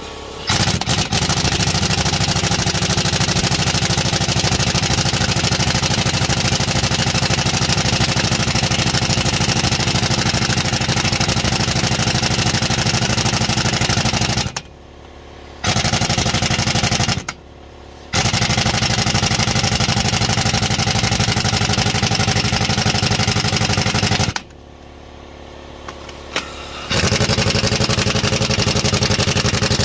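Impact wrench hammering as it undoes bolts in a Caterpillar 3406B cylinder head. It runs in long runs of several seconds, with a few short breaks between them.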